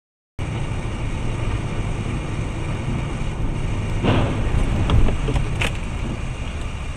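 Steady rumble of road and engine noise heard from inside a moving car through a dashcam in a road tunnel, starting abruptly just after the beginning. It grows louder about four to five seconds in, and there is a sharp click just after.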